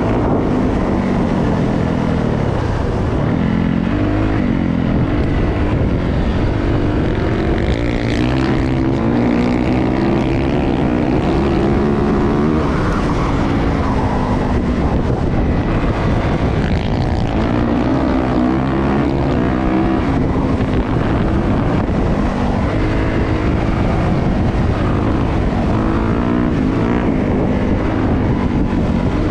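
Four-stroke dirt bike engine running loud, its pitch rising and falling again and again as the throttle is opened and closed.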